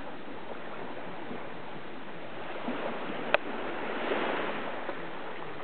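Steady wash of sea waves on the shore, swelling briefly about four seconds in, with a single sharp click a little after three seconds.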